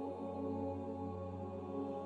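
Ambient background music of slow, held chords with a low steady drone and no beat.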